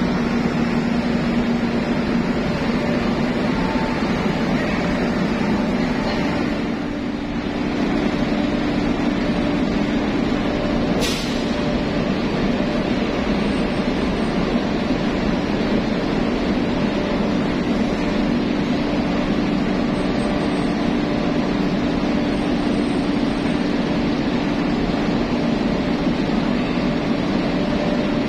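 Steady loud drone of ship's machinery in an enclosed ferry vehicle deck, with a low hum that steps up slightly in pitch about six seconds in. A single sharp click about eleven seconds in.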